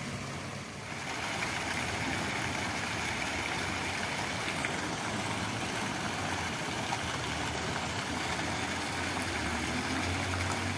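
Water from a tiered stone fountain splashing steadily into its basin, growing louder about a second in.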